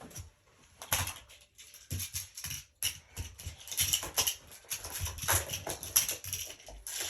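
Plastic magnetic building tiles clacking and snapping together as they are handled, a run of irregular sharp clicks and knocks.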